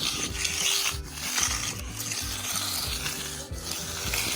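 Magnesium float scraping over wet concrete, a rasping hiss in long strokes as the fresh slab is floated.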